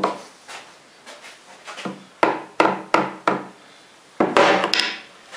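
Sharp knocks of metal parts on a homemade lathe being handled while its alignment is checked: a single knock, then four quick taps about a third of a second apart, then a longer scraping rattle about four seconds in.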